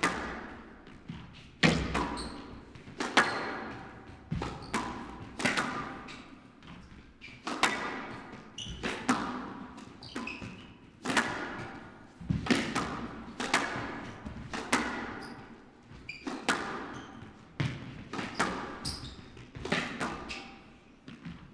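A squash rally: the ball cracking off racket strings and the walls about every second and a half, each hit ringing in a large hall.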